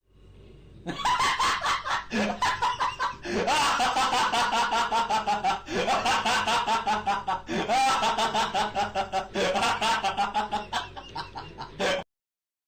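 A long laugh sound effect: a voice laughing in quick ha-ha pulses, about five a second, in several runs that each start with a rising note.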